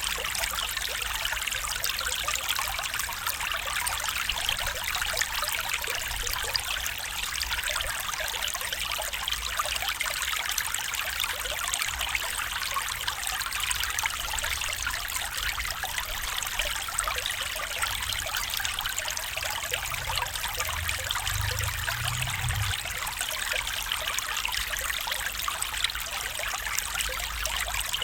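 Small stream trickling and babbling over stones, a steady, even rush of water.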